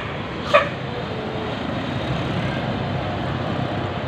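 Steady rumble of large passing vehicles in a bus convoy, with one short sharp knock about half a second in.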